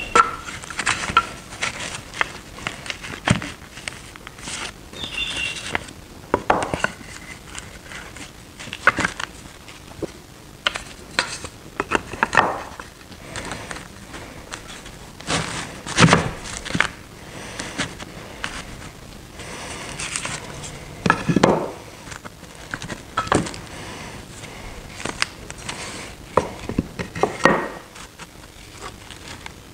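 Thin wooden strips and small wood blocks being set down, slid and shuffled on a workbench: irregular light clacks and knocks of wood on wood.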